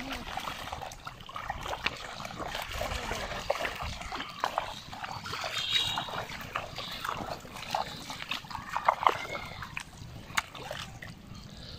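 Feet splashing and squelching through shallow water and soft mud, with sloshing water and a string of sharp splashes that are loudest near the end. A short high-pitched call sounds about six seconds in.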